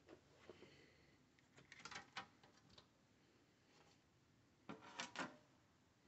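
Faint clicks and light knocks of a laptop's bottom cover being unclipped and lifted off: a quick cluster of snaps about two seconds in and another near five seconds.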